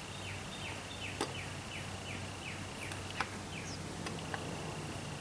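A small bird singing a quick series of about ten down-slurred whistled notes, about three a second, stopping a little over three seconds in. A steady high buzz runs underneath, and there are a few sharp clicks.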